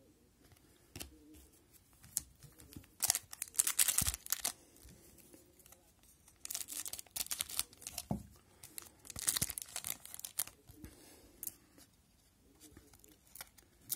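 A hockey card pack's wrapper being torn open and crinkled, in several short bursts of tearing and rustling, with light clicks of cards being handled between them.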